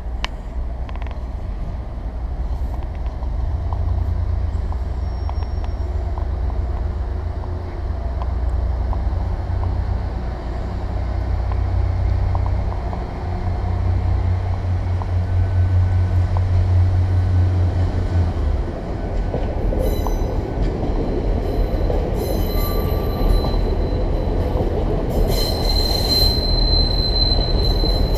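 GWR Intercity Express Train pulling out of the station past the platform. Its low, steady running hum drops away about two-thirds through. Rumbling wheel-on-rail noise then builds, with high-pitched wheel squeals near the end as the carriages roll by.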